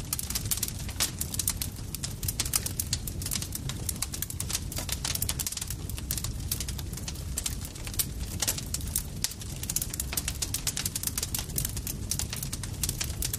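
Campfire crackling: dense, irregular sharp pops and snaps over a steady low rumble of burning.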